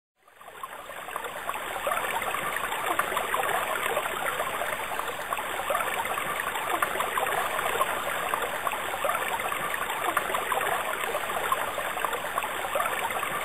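Moving water, a steady rushing and trickling wash that fades in over the first two seconds.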